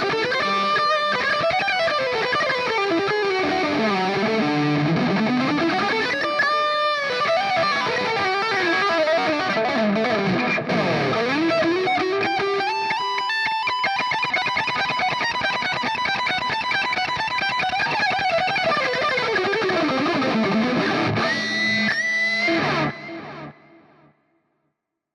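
Electric guitar played through a NUX MG-30 multi-effects processor: a lead improvisation with quick runs of notes up and down. It stops about 23 seconds in and dies away to near silence.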